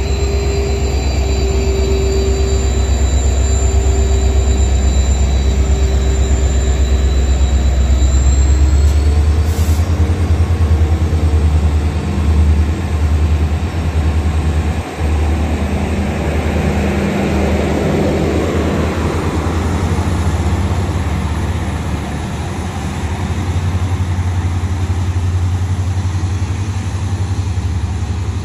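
WDP4 diesel-electric locomotive with an EMD two-stroke engine pulling away under power close by, its engine running with a deep rumble and a high whine for the first several seconds. The passenger coaches then roll past with steady wheel-on-rail noise.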